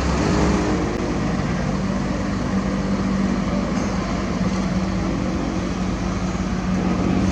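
A heavy diesel engine running steadily at a constant pitch.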